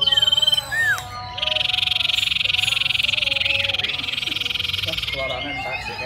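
Caged iora (cipow) singing: a few short whistled notes, then from about a second and a half in a long, loud, fast rattling trill that lasts almost four seconds.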